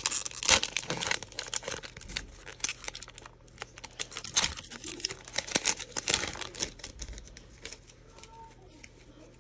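Foil wrapper of a Donruss football trading-card pack crinkling and tearing as it is pulled open, in quick, sharp crackles that die away near the end.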